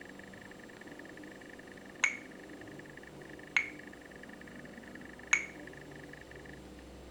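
Three short bell-like dings about a second and a half apart, each dying away quickly: a stock ringtone playing on a Samsung Galaxy Ace La Fleur (GT-S5830i).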